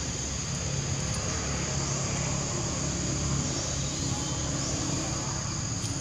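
Steady high-pitched drone of insects, with a low engine hum from a vehicle running underneath it.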